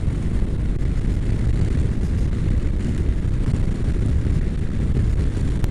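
Honda NC700X parallel-twin motorcycle riding steadily at speed: an even rush of wind on the camera's microphone over the engine's low drone.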